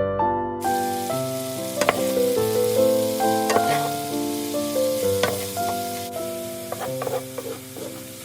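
Food sizzling in hot oil in a frying pan, starting suddenly about half a second in and being stirred, with a few sharp clicks. Piano music plays over it and is the loudest sound.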